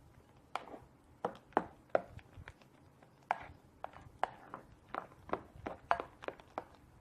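A mixing tool tapping and clicking against a bowl while a foamy glue, shaving-foam and hand-soap slime mixture is stirred. The short sharp taps come irregularly, about two a second.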